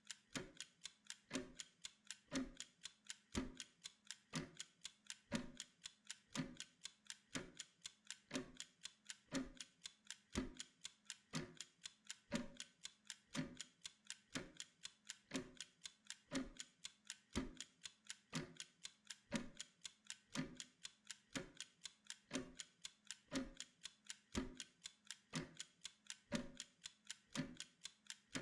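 Wind-up mechanical kitchen timer ticking steadily: rapid light ticks, several a second, with a deeper knock about once a second, counting down a Pomodoro work interval.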